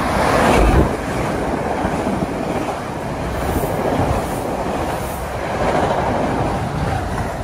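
NJ Transit push-pull train of single-level coaches, cab car leading, running past close by: steady rumble and clatter of wheels on rail, loudest in the first second as the cab car goes by.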